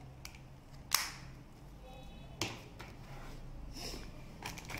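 Handling noises from a small plastic gadget and its cardboard box on a desk: a sharp click about a second in, a weaker tap about halfway through, then light rustling as the box lid is opened.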